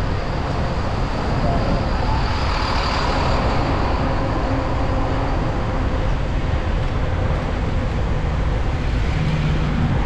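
Steady city road traffic noise, with the low rumble of cars, buses and trucks running along the street.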